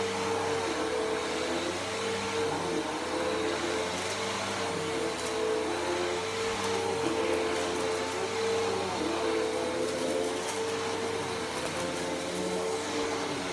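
Bissell PowerForce Helix Turbo upright vacuum cleaner running on carpet. Its motor hums at a steady pitch, with lower tones wavering slightly.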